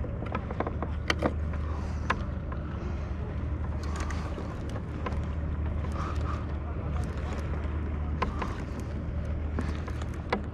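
Water lapping against a fishing kayak's plastic hull, with small irregular clicks and knocks over a steady low rumble.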